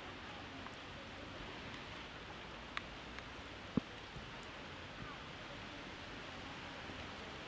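Steady rain falling on a wet street, with a few short sharp taps of drops; the loudest comes just under four seconds in.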